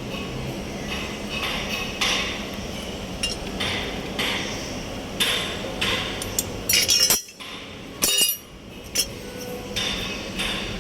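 Irregular sharp metallic clinks and knocks, roughly one every second or so, over a steady low hum.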